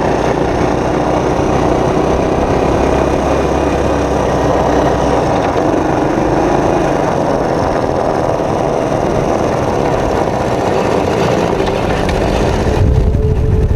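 A vehicle engine running steadily. Near the end the sound changes: the hiss thins out and a steady hum comes in.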